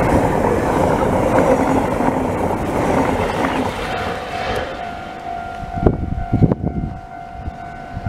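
JR Hokkaido 789 series electric limited express train passing close at speed, a dense rush of wheel and car noise that fades over the first four or five seconds as the train pulls away. A level crossing warning alarm then sounds steadily, with a few sharp knocks about six seconds in.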